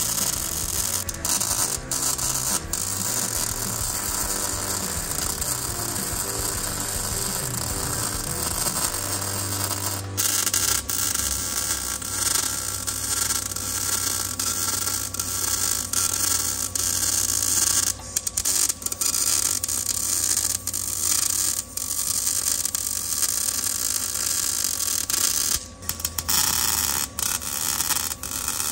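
MIG welder laying a weld bead on a steel gate, a steady crackling sizzle with a few brief stops between welds, over a steady low hum.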